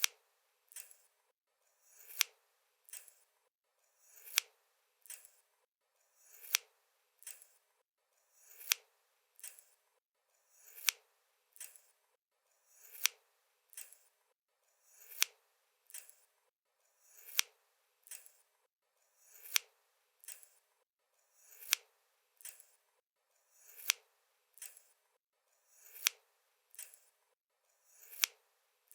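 Scissors opening and closing repeatedly in a steady rhythm, a sharp metallic snip about once a second, alternating louder and softer.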